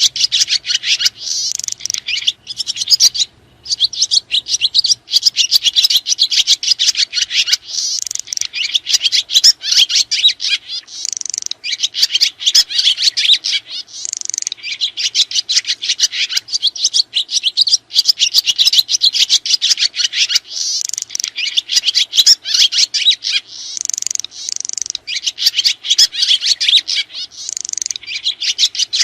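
Swiftlets (sriti) chittering: a dense, unbroken stream of rapid, high twittering trills, with one short pause about three seconds in.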